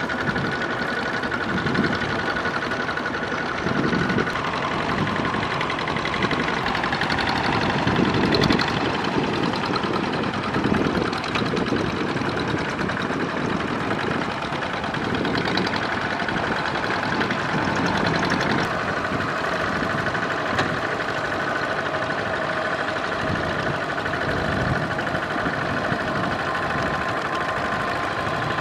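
Two-wheel walking tractor's single-cylinder diesel engine running steadily under load while its cage wheels churn through flooded paddy mud and water. The engine's steady note shifts slightly about two-thirds of the way in.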